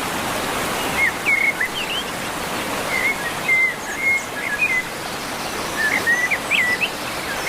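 Steady rush of falling water from a waterfall, with small birds chirping over it in quick clusters of short whistled notes: about a second in, again from about three to five seconds, and near the end.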